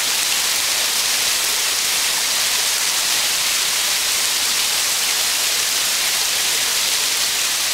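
Steady rush of a high waterfall's falling water, an even hiss with no breaks.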